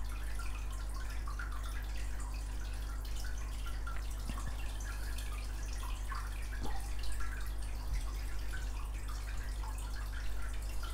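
Steady low electrical hum with faint, scattered small ticks and a couple of light clicks from nail tools and bottles being handled.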